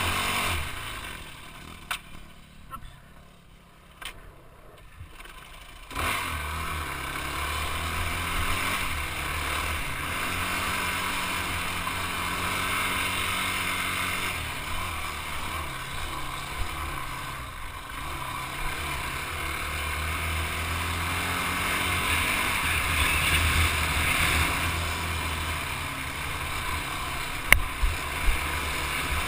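Yamaha quad ATV engine running on a dirt trail ride. It drops quieter for a few seconds near the start, then picks up again about six seconds in and runs steadily. A few sharp knocks sound near the end.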